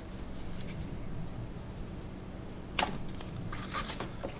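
Faint handling of small packaging items, paper and plastic bits being moved about, with one sharp click a little under three seconds in and a few lighter ticks after it.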